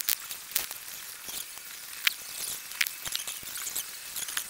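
Handheld camera microphone picking up rustling and friction noise, with sharp irregular clicks and ticks, as the camera is handled while walking.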